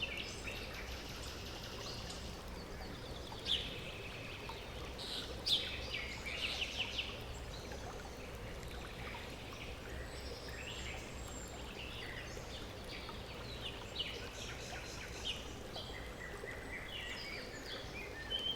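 Running water flowing steadily, with birds chirping and calling over it on and off, including a quick trill about a third of the way in and a held whistled note at the very end.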